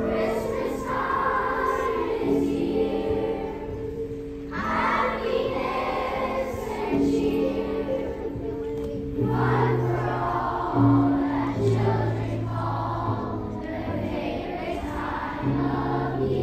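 A fourth-grade children's choir singing a song together, over held notes of musical accompaniment.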